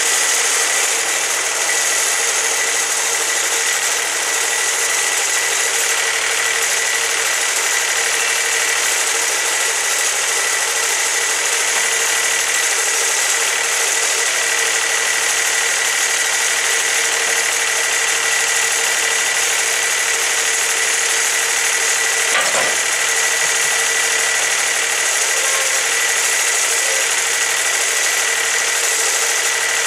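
Wood-Mizer LT40 sawmill's engine running steadily with the blade not cutting, with a single knock about 22 seconds in.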